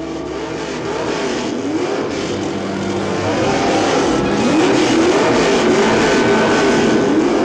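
Car engine revving again and again, its pitch rising and falling about once a second over a steady lower drone.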